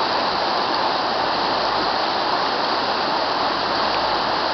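Fast, shallow mountain river rushing over a stony bed, a steady, even water noise.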